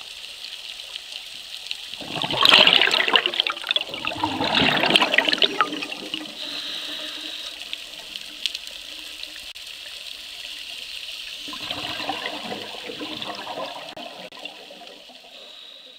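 Scuba diver's exhaled bubbles rushing and gurgling underwater, in three bursts a few seconds apart, with each breath, over a steady high hiss.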